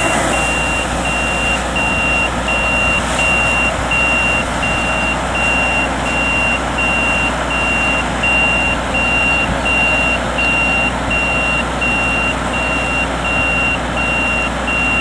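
Yanmar grain-tank combine harvester running steadily, with a high electronic warning beeper sounding about once a second over the engine.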